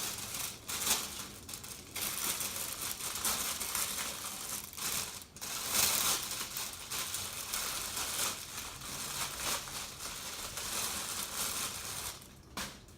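Packaging crinkling and rustling as it is handled and pulled off, with irregular crackles throughout.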